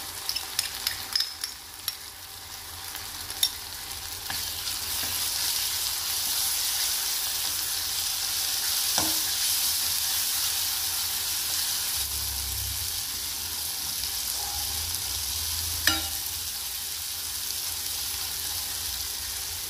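Onion, tomato and green chilli masala sizzling in an oiled pan as a prepared paste is tipped in and stirred with a steel ladle. The sizzle swells over the first few seconds and then holds steady, with a few sharp clinks of the ladle against the pan.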